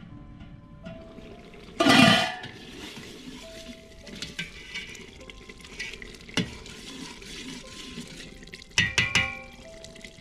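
A metal pot lid and a spoon clanking on a brass cooking pot: a loud ringing clank about two seconds in as the lid is lifted off, a few lighter knocks as the spoon stirs inside, and a quick run of clanks near the end. Soft background music with long held notes plays underneath.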